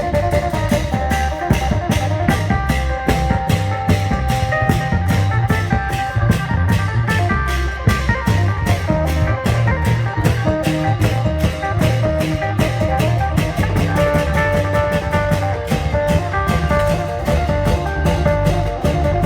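A Thai klong yao long-drum band playing: fast, even drum beats under a melody of held notes.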